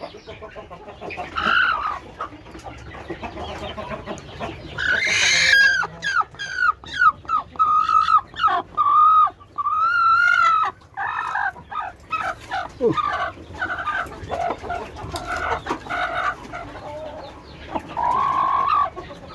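Kampung chickens (Indonesian native chickens) clucking and calling, with a loud run of short repeated calls from about five to eleven seconds in.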